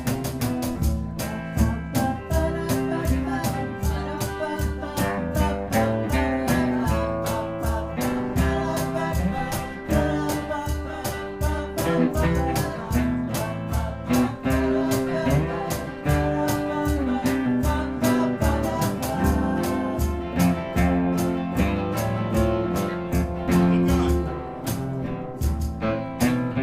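Live acoustic guitar music, strummed in a steady rhythm.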